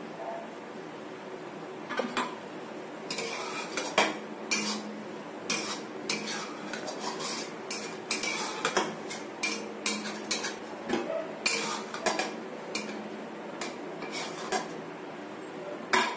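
Steel spoon stirring vermicelli in milk in a metal kadhai, clinking and scraping irregularly against the pan, with a sharper knock near the end.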